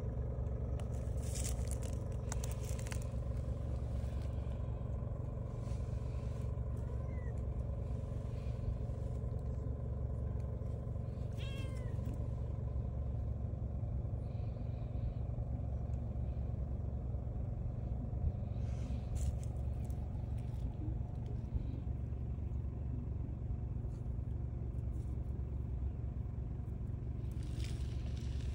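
Calico cat giving one short meow about eleven seconds in, with a fainter meow a few seconds earlier, over a steady low rumble.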